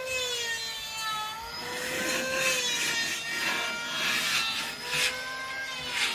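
A handheld power tool whines steadily, its pitch sagging a little now and then. Over it come several rasping bursts, about a second apart, as it cuts or sands wood.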